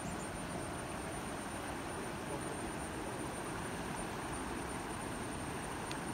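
Steady rushing of a rocky stream's rapids.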